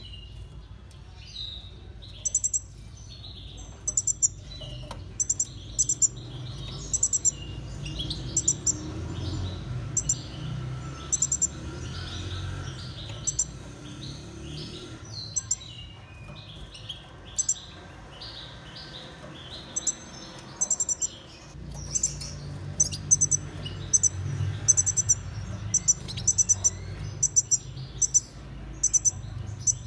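Small cage finches chirping and twittering: many short, sharp high calls in quick runs, with softer warbling notes between them, over a low steady hum.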